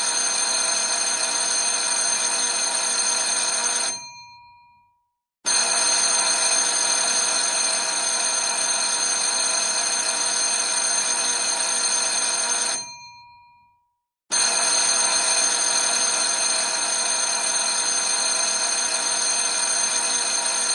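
Old school bell ringing in long unbroken rings. It cuts off about four seconds in and again about thirteen seconds in, each time starting again suddenly after a gap of about a second and a half, and a few of its tones hang on briefly as it stops.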